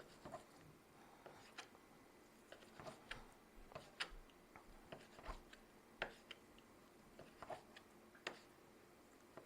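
Near silence with faint, irregular light clicks and taps of ingredients and utensils being handled, a dozen or so spread unevenly, the sharpest about four and six seconds in.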